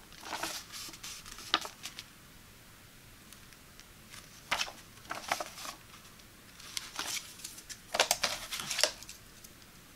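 Paper rustling and crinkling as a folded quick start leaflet is handled and opened out, in a few short bursts with quiet gaps between. Near the end there is a cluster of sharper handling rustles as the leaflet is set down and the hands move into the box.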